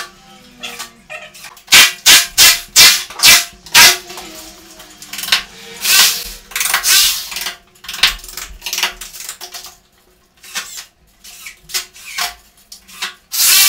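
Cordless drill-drivers drilling into the walls and driving screws in short bursts, fixing the stretch-ceiling baguette profile around the room's perimeter. There is a quick run of about six loud short bursts a couple of seconds in, then longer runs of drilling around the middle and again near the end.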